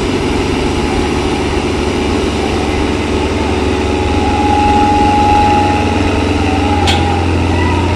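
Diesel tractor engines of a Sonalika and a John Deere running hard against each other in a pulling contest, a steady loud low drone, growing a little louder about halfway through.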